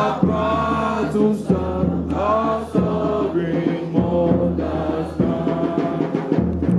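Group of voices singing together in unison, with a deep drum beating underneath.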